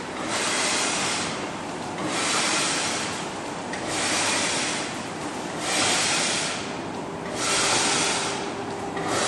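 Hand scraping across the surface of a wall-mounted painted panel, dried pigment being scraped back in long strokes. Each stroke is a loud rasping hiss lasting about a second, repeating roughly every two seconds, about five times.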